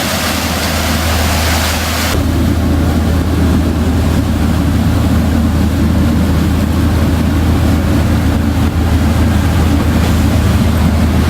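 A sport-fishing boat's engine running with a steady low drone while trolling, with water and wind noise over it. A loud hiss on top drops away sharply about two seconds in.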